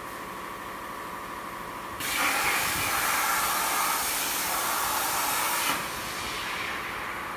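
CNC plasma cutting torch running, a loud steady hiss that starts suddenly about two seconds in and cuts off a few seconds later, over a steady machine hum.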